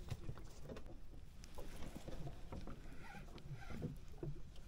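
Faint, scattered clicks and light knocks of fishing tackle being handled aboard a small wooden boat, over a low background of water and wind.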